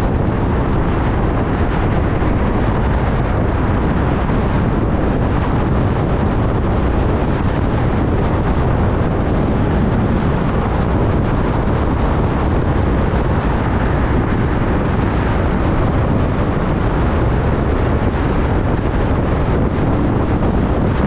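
Road and wind noise of a moving car: a loud, steady low rumble that does not change.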